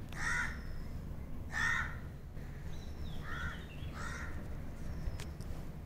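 A crow cawing four times over the first four seconds, over a low steady background rumble.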